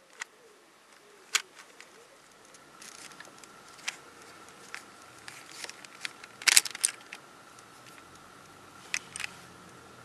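Plastic clicks and clacks of a MoYu Weilong 3 speedcube being turned and handled, scattered single clicks with a louder cluster past the middle, as a piece is popped out of the cube to show its mechanism.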